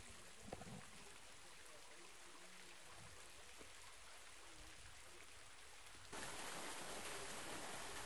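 Thin waterfall splashing into a rock pool, a steady low hiss of falling water; the falls are running as a mere trickle in drought. The water sound steps up in level about six seconds in.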